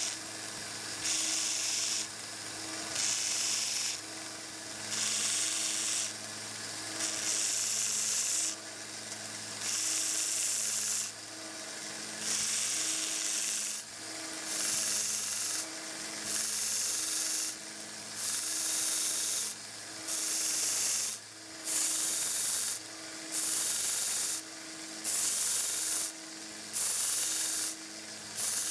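1x30 belt sander running with a 120-grit belt while a steel awl shaft is pressed against it in repeated short passes. Each pass is a hiss of abrasive grinding over the steady motor hum, about one pass every one to two seconds, coming quicker near the end.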